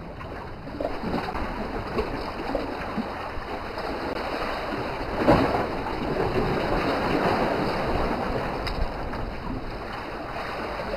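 Small waves washing against a rocky shore, with wind on the microphone; a brief louder rush of water about five seconds in.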